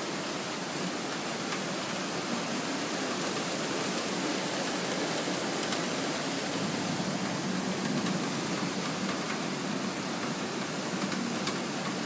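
Rain falling steadily, an even hiss with a few faint ticks.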